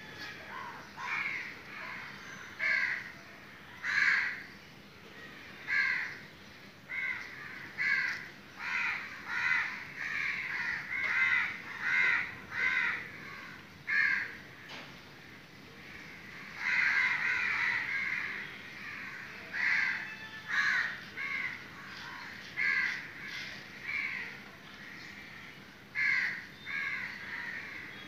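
Crows cawing over and over, roughly one call a second, with a thicker run of overlapping caws about two-thirds of the way through.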